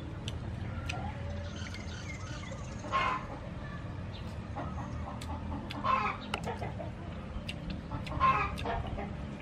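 Chickens clucking in three short bursts a few seconds apart, over steady low background noise.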